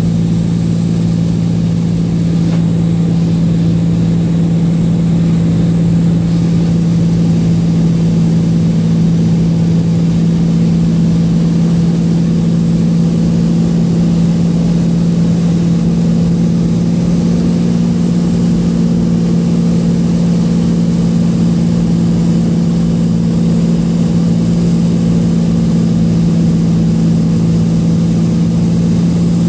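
Light aircraft's engine and propeller droning at a steady pitch, heard from inside the cabin.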